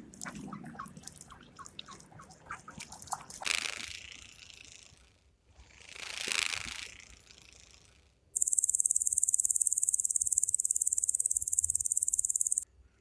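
Insect trilling: a steady, high-pitched, rapidly pulsing buzz that starts about eight seconds in, runs for about four seconds and cuts off abruptly. Before it come a run of scattered clicks and two brief swelling rushes of noise.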